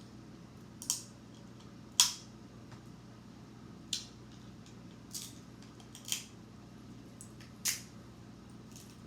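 Crab leg shells being cracked and snapped apart by hand: six sharp, irregularly spaced cracks, the second one loudest.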